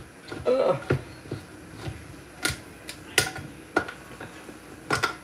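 About half a dozen sharp, irregularly spaced clicks and knocks of kitchen utensils and cookware being handled at the stove.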